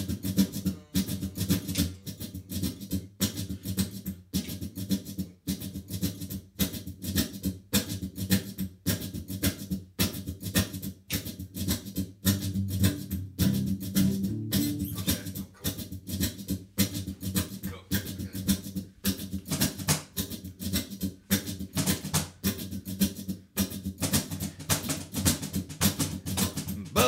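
Instrumental music with a steady drum beat over low, sustained backing tones, with no vocals.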